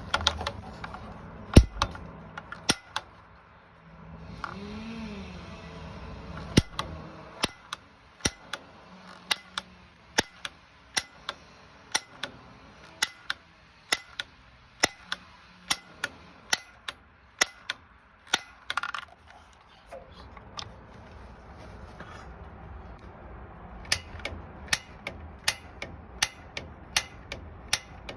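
A.O. Smith water heater making sharp ticking knocks, a few scattered at first, then about two a second with a short pause before they resume near the end.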